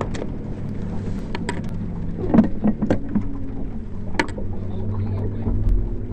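An engine idling steadily at low revs, with a few short knocks in the middle.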